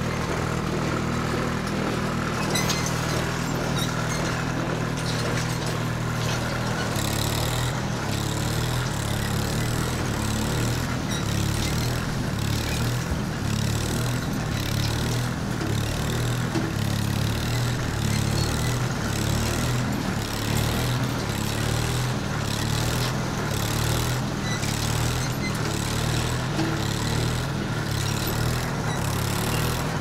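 Steady engine-like machine hum, low and continuous, with a regular pulsing in the higher range from about seven seconds in.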